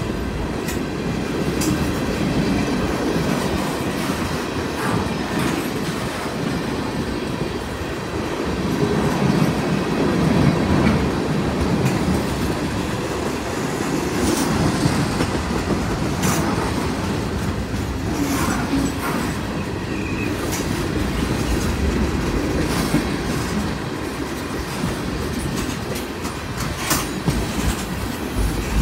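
Freight train's tank cars rolling steadily past: continuous rumble of steel wheels on rail with clickety-clack, and scattered sharp clicks as wheels pass over the joints.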